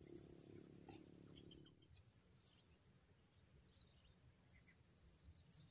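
Insects trilling in the rice paddy: one steady, unbroken high-pitched drone, with a few faint chirps.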